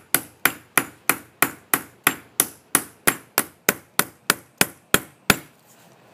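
Ball peen hammer striking a steel punch held on a brass hinge laid on a vise's steel anvil, a steady run of sharp metallic taps with a brief ring, about three a second. The strikes dent the hinge for a hammered, hand-forged look. They stop about five seconds in, the last one the loudest.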